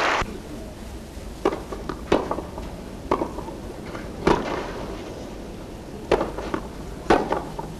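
Tennis ball struck back and forth with wooden rackets in a rally: sharp pocks, about six, at uneven gaps of one to two seconds.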